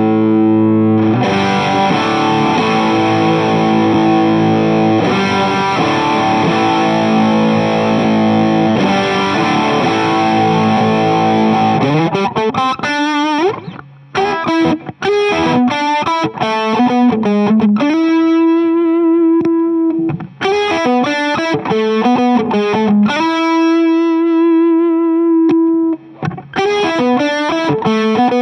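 Electric guitar through a King of Tone–style dual overdrive pedal into a Fuchs ODS amp simulation, noodling. It starts with held, heavily overdriven chords. About twelve seconds in it turns to single-note lines and short phrases with brief stops and long sustained notes.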